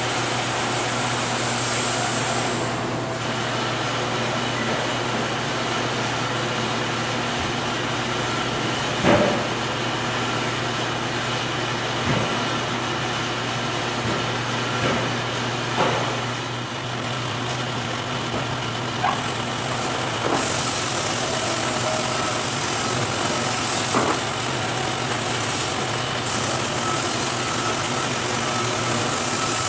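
Electric band sawmill and board edger running steadily, a constant machine hum with a high hiss of cutting at the start and again through the second half. Several sharp wooden knocks stand out, about a second in a few places, as boards are handled.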